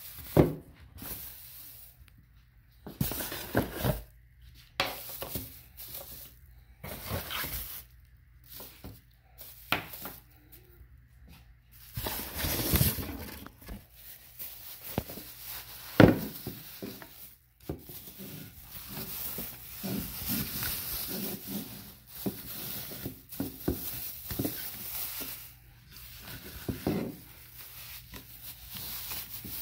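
Plastic packaging bags crinkling and a cardboard box rustling as new headlights are unpacked by hand, in irregular bursts, with a few sharp knocks of hard objects set down on a stone countertop; the loudest knock comes about halfway through.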